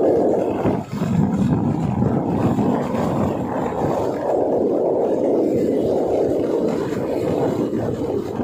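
Wind buffeting a moving camera's microphone: a loud, rough, uneven rumble with no steady pitch.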